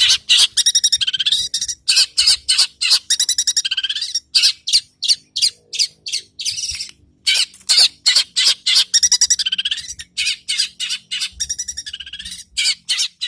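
Bird calls: loud, rapid runs of high chirping notes with swooping pitch, broken by short pauses.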